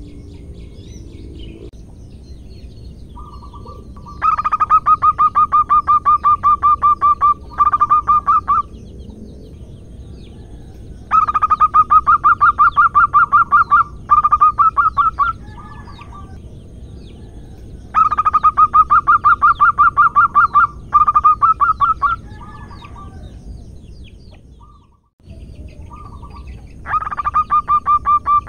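Zebra dove (perkutut) calling in fast runs of short, evenly spaced coos, each run lasting about three seconds, four runs roughly seven seconds apart: a female's call inviting a male to mate.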